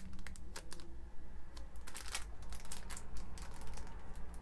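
Irregular small clicks and taps from handling a packaged three-pack of makeup brushes, with light crinkling of packaging.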